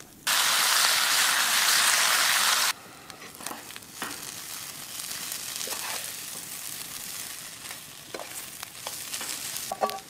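Bacon sizzling loudly in a frying pan over a campfire for about two and a half seconds, cutting off suddenly. Then shredded potatoes frying more quietly in the pan, with a utensil stirring and scraping and a few light knocks.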